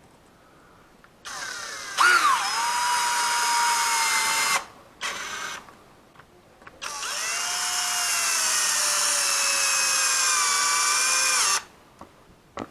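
Electric drill boring holes into the wall for wall plugs: a run of about three seconds, a short burst, then a longer run of about five seconds whose whine slowly drops in pitch as the bit works in.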